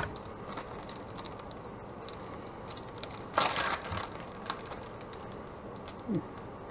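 Plastic cheese-slice package rustling and crinkling briefly about three and a half seconds in as it is handled, with a few small ticks after it. A brief low vocal sound near the end.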